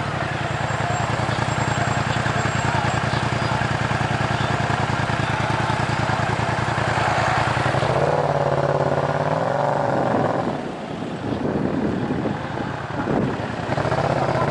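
Yamaha MT-07's parallel-twin engine running through a Tiger full exhaust system with de-catted headers, moving slowly in traffic with a steady pulsing note. About eight seconds in the revs climb briefly, then fall away near ten seconds, leaving a rougher, uneven sound.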